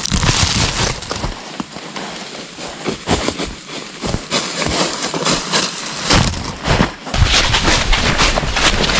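Campfire crackling and snapping in irregular sharp pops, with a low rumble coming in during the second half.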